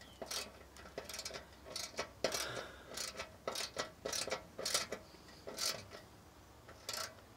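Socket ratchet clicking in short irregular bursts as it is worked back and forth, driving a screw inside a metal meter base enclosure.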